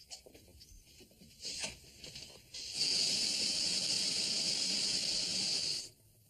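Water spray hissing steadily for about three seconds, starting suddenly and cutting off suddenly.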